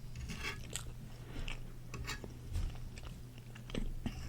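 A person chewing crunchy food, with irregular crisp crackles as the food is bitten and ground.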